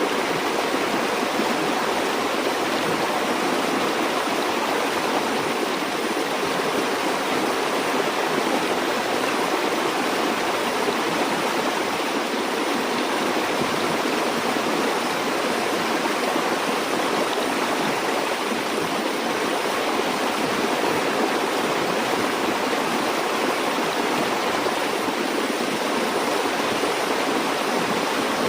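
Steady rushing of a flowing stream, an even wash of water noise with no breaks.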